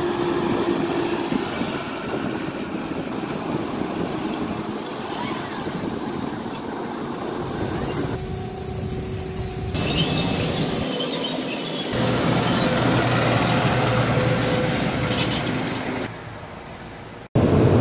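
Farm machinery noise in short clips cut one after another. First a New Holland tractor runs while pulling a bulk trailer, then onions run along a conveyor. The sound changes abruptly at each cut.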